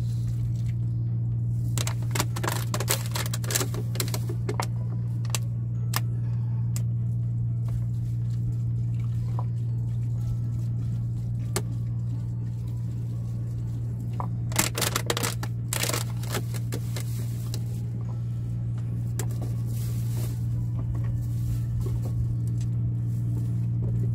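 Plastic bag and litter crinkling and rustling while trash is gathered, in two bursts, about two seconds in and again about fifteen seconds in, over a steady low hum.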